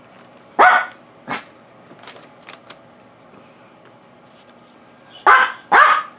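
An old dog barking: a loud bark about half a second in and a weaker one just after, then two loud barks in quick succession near the end. It is barking for the food on its owner's plate, a hot dog.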